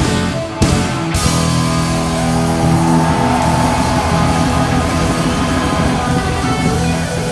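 A rock band playing live, with the electric guitar to the fore. The high end thins out briefly about half a second in, then the full band comes back in with sustained notes and a gliding lead line.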